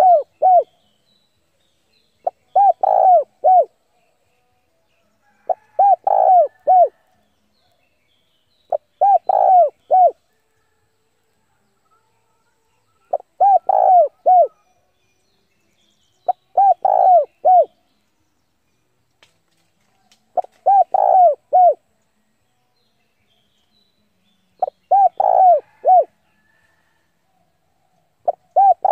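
Spotted dove cooing: the same short phrase of a few low coos, repeated about every three to four seconds. It is a decoy male's calling song, used to lure wild doves in to fight.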